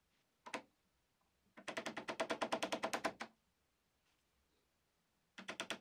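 Small hammer tapping on the end of a small flat screwdriver, driving the center pin of a plastic rivet into a Volvo 850/V70 load cover's roller rod. A lone tap comes first, then a fast run of light taps at about ten a second for nearly two seconds, and another run starts near the end.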